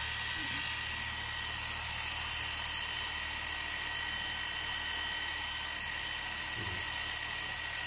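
Cordless drill clamped in a wooden frame, running steadily with an even high-pitched whine.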